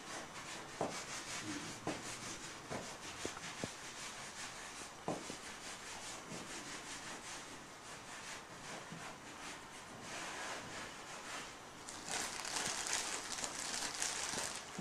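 Hands rolling pasta dough into thin sticks on a wooden pasta board: a faint, steady rubbing with a few light knocks in the first seconds. Near the end, a brighter rustle as a hand goes into the plastic freezer bag holding the dough.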